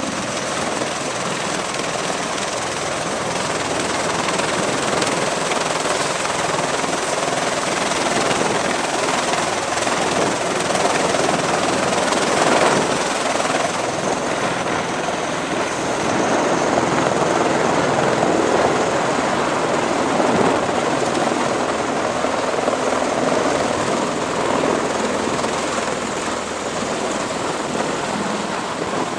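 MV-22 Osprey tiltrotor's engines and proprotors running loud and steady in vertical-lift mode as the aircraft lifts off the deck in the second half.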